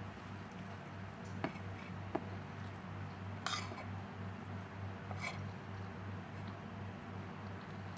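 Cutlery clinking and scraping against a plate during eating: a handful of separate clicks, over a low steady hum.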